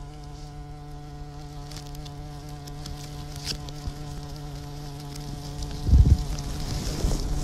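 Bumblebee hovering close, its wings giving a steady low buzz of one held pitch. About six seconds in, a brief low buffeting on the microphone is the loudest sound.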